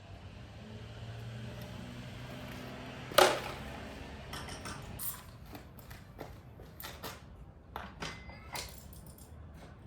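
Plastic engine-bay parts being handled and unfastened on a BMW N46 four-cylinder: one sharp clack about three seconds in, then a run of light clicks and knocks as the oil filter's plastic cover and the oil filler cap come off. A low steady hum underlies the first few seconds.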